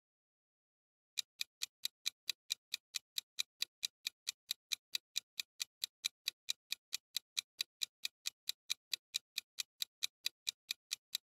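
Ticking-clock sound effect counting down the time to answer: short, even ticks at about four a second, starting about a second in.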